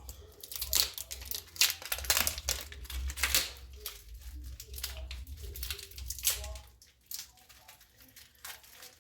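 Packaging crinkling and tearing in a series of irregular rustles that thin out near the end, as the new brake linings are unwrapped.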